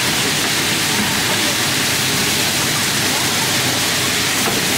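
Pot stickers sizzling and bubbling steadily in a wide, shallow pan of hot oil: an even, unbroken frying hiss.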